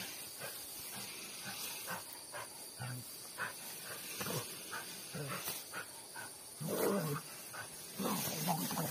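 Small dog growling in short, separate bursts, loudest about seven seconds in.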